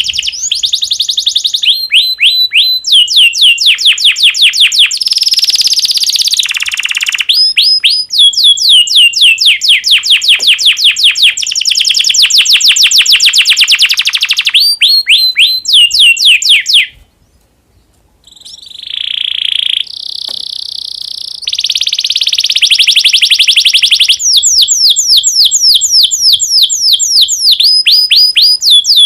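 Male domestic canary in breeding condition singing: fast rolling trills of repeated high notes, each sweeping downward, mixed with buzzier rolls, broken by a short pause about two-thirds of the way through.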